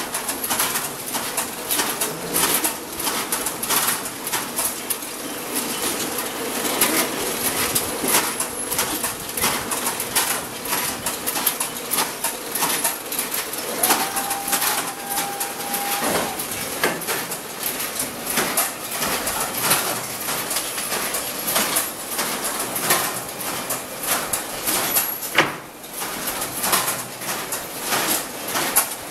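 Staalkat 192 egg machine running, with a continuous rapid clatter of eggs and trays clicking through the mechanism. A steady tone sounds for about two seconds near the middle.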